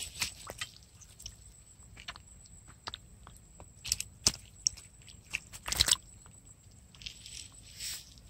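Freshly caught rohu flapping on a wet mesh net: scattered wet slaps, clicks and crackles, with louder slaps about four and six seconds in and a short rustle near the end.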